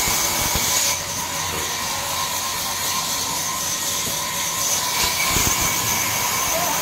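Sawmill band saw running steadily with a high whine and hiss. A couple of low thumps sound, one about half a second in and one about five seconds in.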